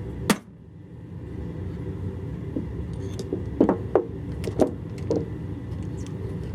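Small steel tooling pieces clicking and clinking as they are handled and set down: one sharp click about a third of a second in, then a run of light clinks a few seconds later, over a steady low hum.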